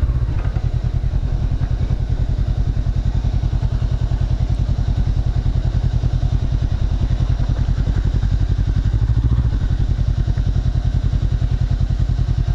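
Honda CB500X parallel-twin engine with an aftermarket Staintune exhaust running steadily, an even stream of exhaust pulses.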